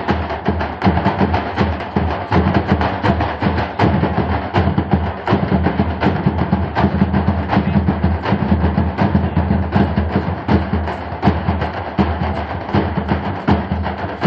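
Drums beaten by hand in a fast, steady rhythm, with sharp strikes that keep going without a break.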